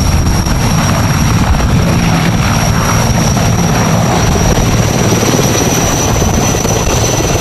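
Helicopter running: a steady churn of rotor noise with a constant high turbine whine above it.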